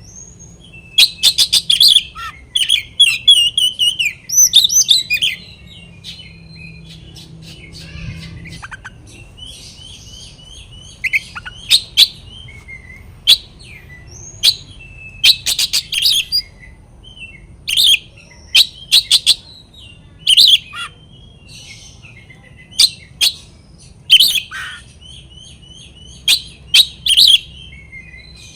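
Oriental magpie-robin (kacer) singing loudly and challengingly. Dense whistled trills and sharp notes fill the first few seconds, then short, harsh phrases come every second or two. This is the agitated song of a bird calling out for a rival.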